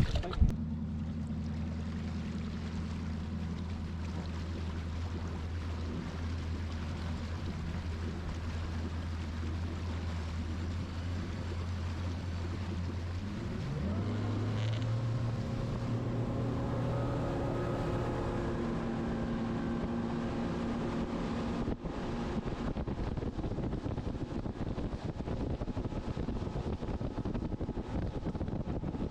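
Boat's outboard motor running steadily at low speed, then throttled up about 13 seconds in, its pitch climbing. Later the engine tones fade under a steady rush of wind and water as the boat runs along.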